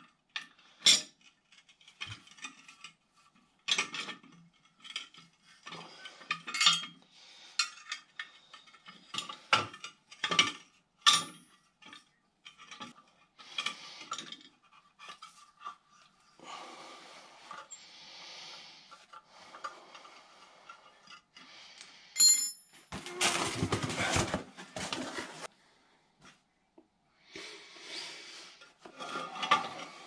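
Scattered metallic clinks, taps and scrapes of wrenches working on a furnace's gas burner manifold as its small propane burner orifices are unscrewed. About three-quarters of the way in there is a sharp ringing clink, then a couple of seconds of louder rasping.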